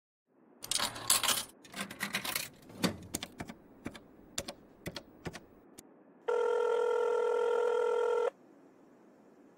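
Payphone in use: a clatter of handling, then a run of single sharp clicks as a number is dialled. About six seconds in, a steady telephone ringing tone sounds through the handset for about two seconds.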